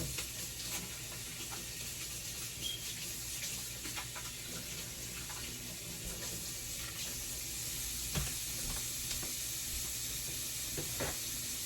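Tap running steadily into a sink while hands are washed under it, with a few light knocks.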